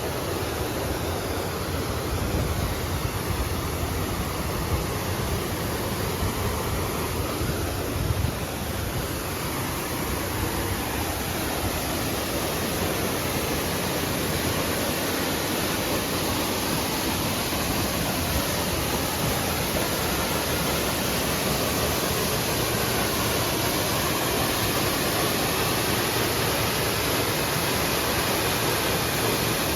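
Steady rushing of water from a creek waterfall, an even hiss with no breaks.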